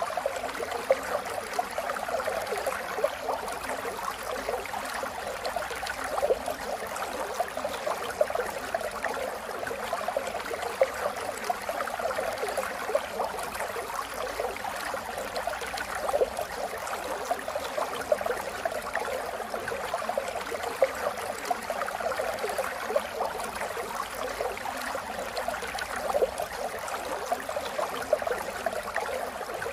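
Steady rain falling: a dense, even hiss of many small drops, with frequent louder single drops standing out.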